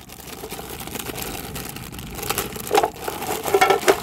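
Plastic bag crinkling as mussels in their shells are tipped out of it into an aluminium pot, with a run of sharp shell-on-metal clatters in the second half.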